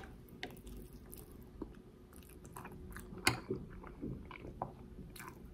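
A person chewing a mouthful of rice with aubergine and dried fish, close to the microphone: faint mouth sounds with scattered short clicks, the sharpest about three seconds in.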